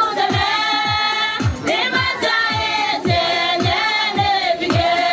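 Women's church choir singing a hymn together in held, gliding notes, with one voice through a microphone. A low thump beats under it about twice a second.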